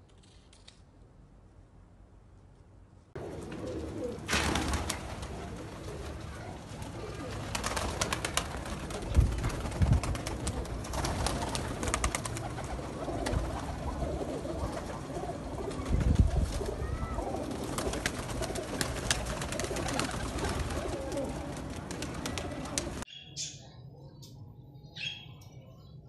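A flock of domestic pigeons cooing, starting after about three seconds of near silence, with scattered sharp clicks and a few low thumps. It cuts off suddenly near the end, and a few short high chirps from a caged parrot follow.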